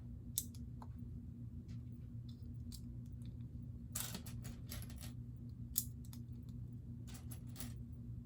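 Plastic Lego pieces clicking and clattering as they are handled and pressed together: scattered sharp clicks, with a small cluster about four seconds in and another near the end.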